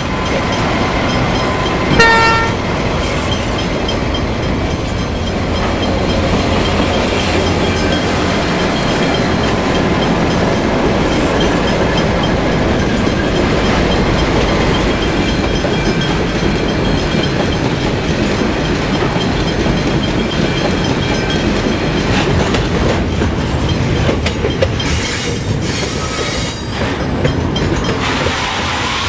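A short blast of a diesel locomotive's horn about two seconds in, then the locomotive and its container wagons rolling past close by with a steady, loud rumble of wheels on rail.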